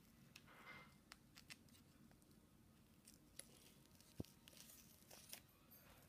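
Near silence with faint scattered clicks and a brief soft rustle from hockey tape and the stick being handled.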